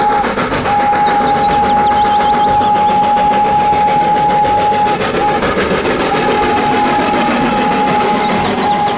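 Whistle of a full-size locomotive made up as Thomas the Tank Engine, blown in long, steady blasts with short breaks, the longest break about five seconds in. Underneath is the rumble and rattle of the train passing close by.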